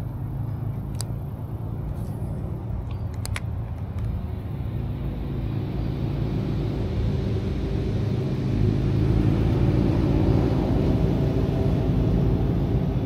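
Low engine rumble of a motor vehicle, growing steadily louder over several seconds. A few faint clicks sound about one and three seconds in.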